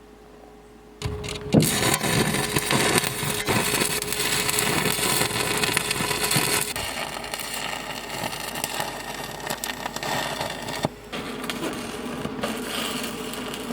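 Truck running and moving over rough ground, with a steady noise full of knocks and rattles that starts about a second in.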